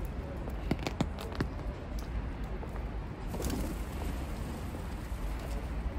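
Feral pigeons taking off from a wet pavement in a flurry of wing flaps, with sharp wing claps and footsteps about a second in, over a steady low rumble of street traffic.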